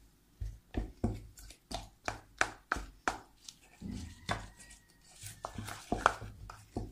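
Spoon knocking and scraping against a stainless steel bowl while stirring a thick mix of melted white chocolate and ground peanuts: irregular sharp clicks, about two or three a second.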